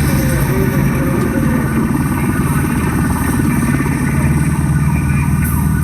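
A fireworks display in full swing: a loud, unbroken wall of sound from the show's soundtrack and the fireworks, with a few gliding whistle tones.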